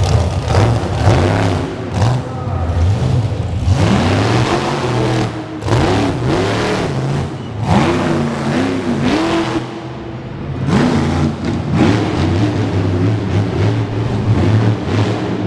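Monster truck engine revving hard again and again, its pitch sweeping up and down in quick rises and falls, with a brief lull about ten seconds in.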